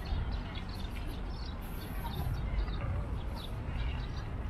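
Outdoor park ambience: birds chirping over a steady low rumble.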